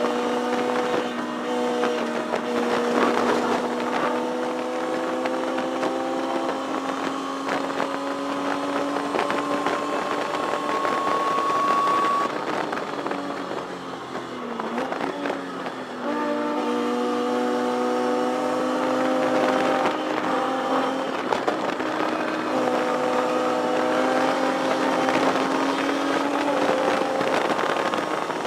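Inline-six engine of a 1973 Datsun 240Z race car heard from inside the cockpit under hard acceleration, its pitch climbing steadily. It drops off about twelve seconds in, with a brief lull near fifteen seconds as the car slows for a corner, then climbs again, breaking and resuming about twenty-two seconds in.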